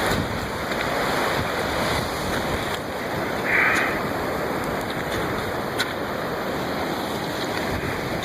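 Storm surf and wind: a steady rush of breaking waves and blowing wind, with wind buffeting the microphone.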